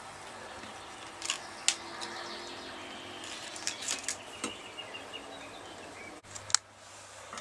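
A handful of short, sharp clicks and snips from side cutters and thin wire being handled at a workbench, two near the start, a cluster in the middle and two more near the end, over a faint steady background hiss.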